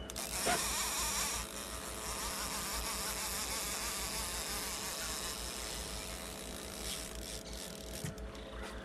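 Fishing reel drag buzzing as a fish pulls line off the spool, starting suddenly and loudest in the first second and a half, with a steady hum underneath.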